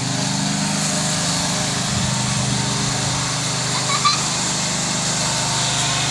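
Riding lawn mower's engine running steadily as the mower drives across the lawn.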